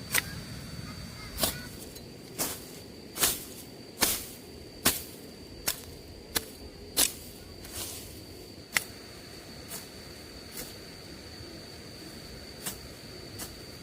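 Sharp, irregular strikes, about one a second for the first nine seconds and then sparser, over a steady high-pitched insect drone.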